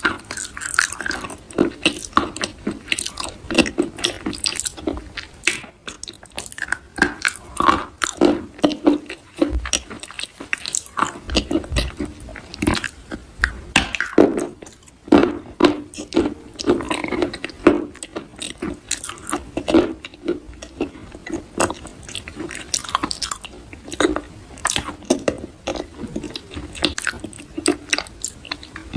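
Close-up soft crunching: a crisp material being crushed, with many quick, irregular crackly crunches several times a second.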